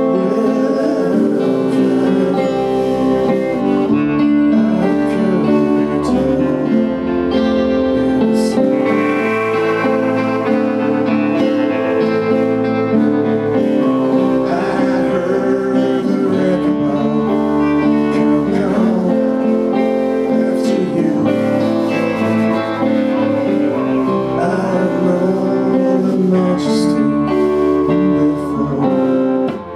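Live band music: strummed acoustic guitars and a plucked upright double bass, with a man singing.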